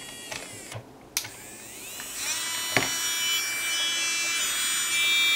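Electric nail drill (e-file) motor switched on about a second and a half in, its whine rising in pitch as it spins up, then running steadily at a high pitch. A light click comes just before it starts and another about a second after.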